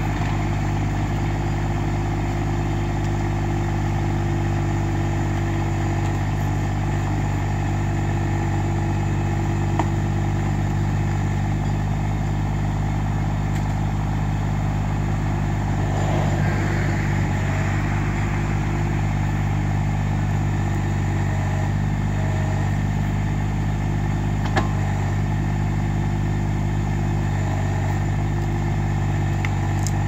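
Massey Ferguson GC1710 sub-compact tractor's three-cylinder diesel running steadily under load while it works the backhoe. Two sharp knocks stand out, about ten seconds in and again near the end.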